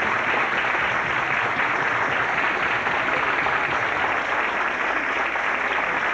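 A hall audience applauding: dense, steady clapping from many hands.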